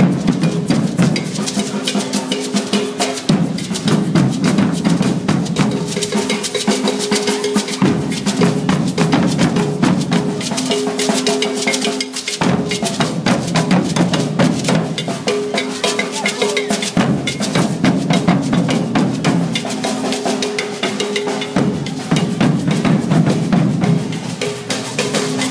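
Street percussion band marching and drumming a steady rhythm, played in repeating phrases of a few seconds each.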